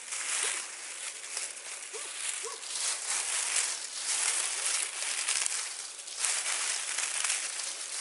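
Dry leaves rustling and crunching as they are gathered up, a continuous crackle with a brief lull near the end.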